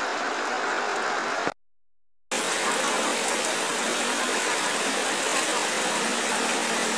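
Steady rushing noise of flash-flood water streaming across a road, with rain falling. The sound cuts out into silence for under a second about one and a half seconds in, then resumes.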